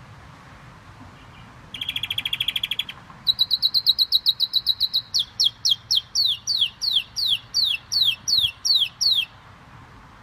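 Gloster canary singing: about two seconds in, a rapid trill, then a faster, higher trill, then a run of slower notes that each sweep down in pitch, about four a second, before the song stops near the end.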